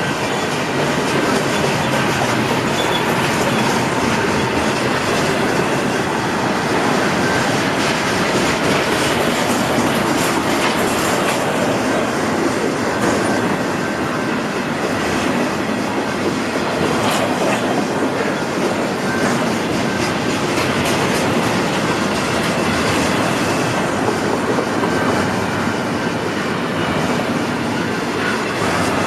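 Cars of a long intermodal freight train rolling past, a steady loud rush of wheels on rail with clickety-clack over rail joints and a thin high wheel squeal at times.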